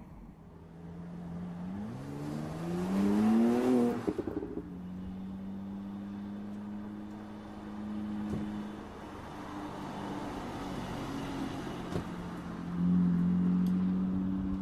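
Mercedes-AMG SLC43's twin-turbo V6 accelerating, its pitch climbing for about two seconds. The note then cuts off suddenly with a brief crackle as the throttle closes, and the engine settles into a steady note before getting louder again near the end.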